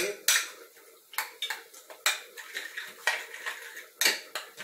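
A utensil stirring and beating eggs into a mashed cooked jiló mixture in a glass bowl, clicking and scraping against the bowl in quick, irregular strokes, roughly two a second. This is the mixing of the batter for jiló fritters.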